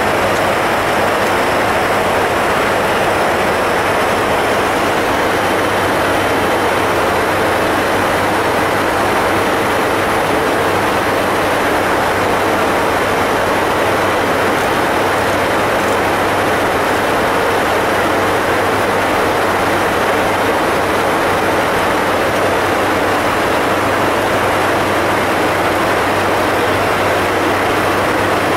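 Boeing 747-400F flight deck in flight: a steady, loud rush of air with a low hum beneath, unchanging throughout.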